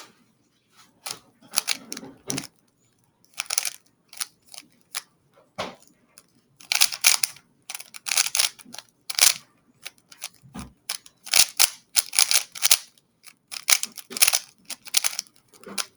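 Yuxin Little Magic M speedcube being turned fast by hand, its plastic layers clacking in quick runs of sharp clicks with short pauses between runs.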